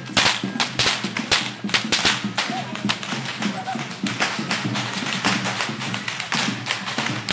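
Tlacololero dancers' whips cracking in quick, irregular succession, several sharp cracks a second, over music.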